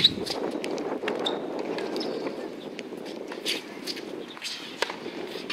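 Tennis rally: the ball struck by rackets several times, one sharp hit as it begins and more over the following seconds, with shoe squeaks on the hard court, over a steady low rumble of background noise.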